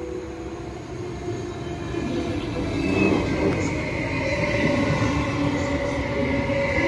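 Mälartåg ER1 double-deck electric passenger train rolling slowly along the platform, getting louder as it comes alongside, with steady high squealing tones over the rumble of its wheels.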